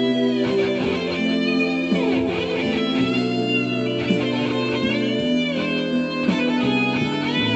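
Electric guitar playing a slow lead line with sustained notes and string bends, over a backing of bass and held chords.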